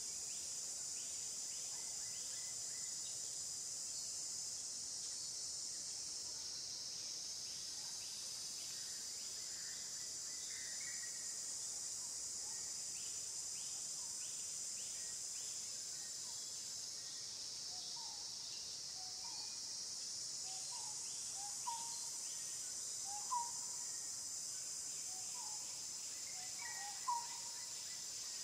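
Steady high-pitched insect drone with a faint regular pulsing, joined by short rising chirping calls that repeat every second or two in the second half.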